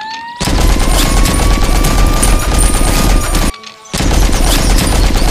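Rapid machine-gun fire in two long bursts, the first lasting about three seconds and the second starting after a brief pause near the end, over a whine that rises and then holds steady through the first burst.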